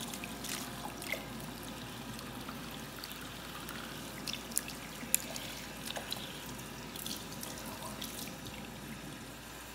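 Water trickling and splashing in a sink as a wet Yorkie puppy is rinsed off by hand, with a few small sharp splashes and drips.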